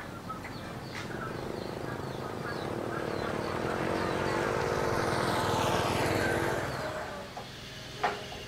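A small motorcycle riding past, its engine growing louder to a peak a few seconds in and then fading away. Birds chirp faintly in the background.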